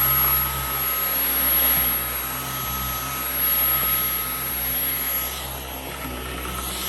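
Dyson V11 Outsize cordless stick vacuum running on carpet: a steady motor whine over a rush of air, getting louder and softer every second or two.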